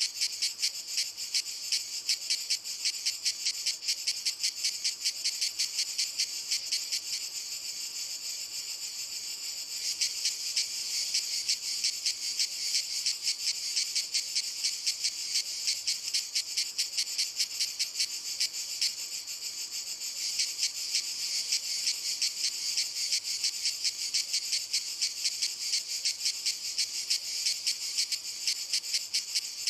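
Cicadas singing: a loud, high, rapidly pulsing buzz of several pulses a second. For a few seconds about a quarter of the way in it eases into a steadier, softer drone, then the pulsing returns.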